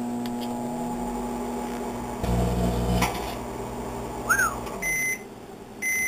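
Microwave oven running a short cycle with a loop antenna and a resistor load inside: a steady electrical hum with the fan, getting louder and rougher for about a second midway. The hum stops about five seconds in, followed by two short high beeps from the oven as the timer ends.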